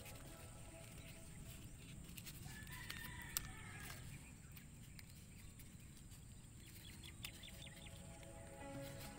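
A rooster crowing once, faintly, about three seconds in, with a sharp click in the middle of the crow. Soft background music drops away at the start and comes back near the end.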